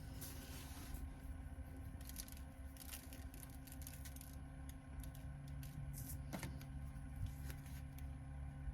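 Faint scattered clicks and small handling noises of food preparation over a steady low hum.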